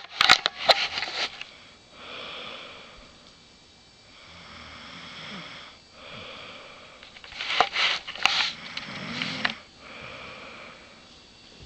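A sleeping woman snoring: noisy breaths that come and go every second or two. There are louder sharp sounds within the first second and again about eight seconds in.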